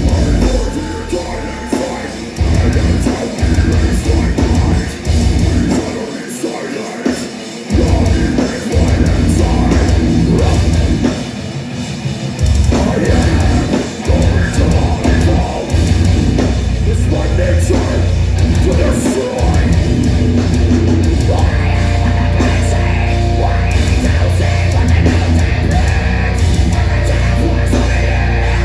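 Deathcore band playing live heavy metal through a concert PA: distorted guitars, bass and drum kit, loud and dense, with stop-start breaks where the heavy low end drops out briefly a few times. Heard from the crowd.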